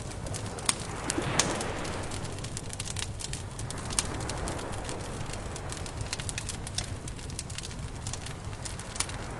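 Campfire crackling, with irregular sharp pops and snaps over a steady low rumble; the hiss swells briefly about a second in.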